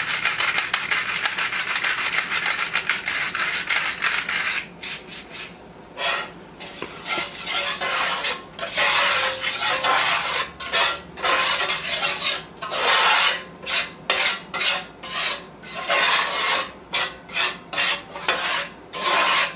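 A flour-and-oil roux being stirred in an enameled cast-iron skillet: fast, dense whisk-scraping for the first few seconds, then slower separate strokes scraping the pan bottom, about one or two a second.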